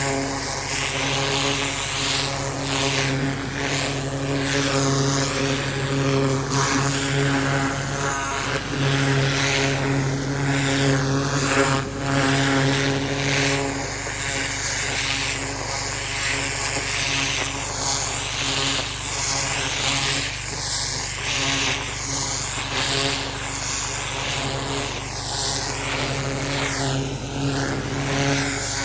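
Engine-driven pressure washer running steadily, its high-pressure jet hissing into gravel and soil, the hiss shifting continually as the spray moves.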